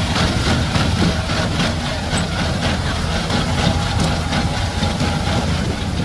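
Heavy machine engine running steadily.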